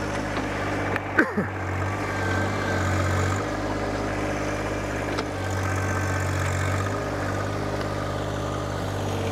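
John Deere 1025R compact tractor's three-cylinder diesel engine running under load while its front loader pushes and lifts soil, the engine note swelling twice as the loader works. A sharp knock about a second in.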